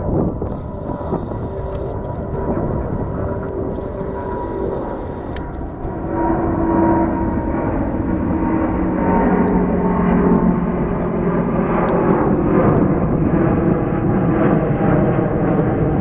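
Airbus A330neo's Rolls-Royce Trent 7000 turbofans at take-off climb power: a steady jet rumble that grows louder about six seconds in, with engine tones that slowly fall in pitch as the airliner passes.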